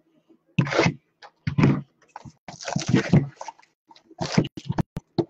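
A cardboard hobby box of 2019 Diamond Kings baseball cards and its wrapped packs being handled: bursts of rustling and crinkling of the wrappers, then a quick run of sharp clicks and taps near the end.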